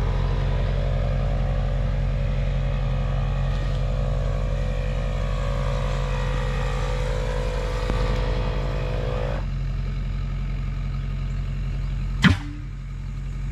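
An engine running steadily, with a higher even whine over it that cuts off suddenly about nine seconds in. One sharp clank comes near the end.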